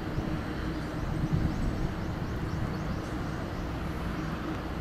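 Steady outdoor ambience on an open training ground: an even rumble and hiss with no single clear source.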